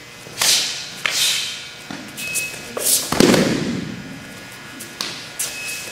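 Sharp slaps of contact as a jujitsu throw is carried out. About three seconds in comes a heavier thud as the thrown partner lands on the gym mat, and a few lighter slaps follow near the end.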